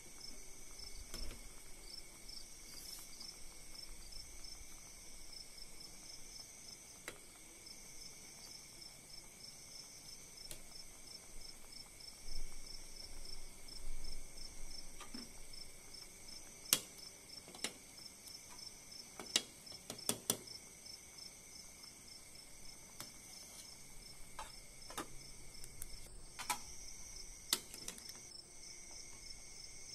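Crickets chirping steadily in the background. Several sharp clicks and knocks come mostly in the second half, as a ladle strikes the stainless-steel soup pot while the herbs are stirred.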